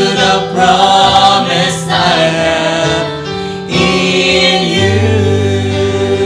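Gospel worship band and a group of singers singing the closing line of a praise song, then holding a sustained final chord over a low bass note.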